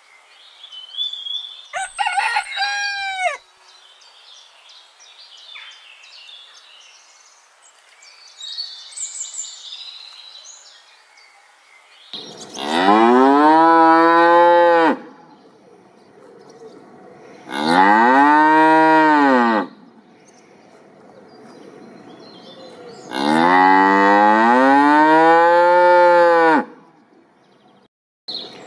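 Cow mooing: three long moos, each rising then falling in pitch, the first about twelve seconds in. Near the start, a shorter, higher call falling in pitch.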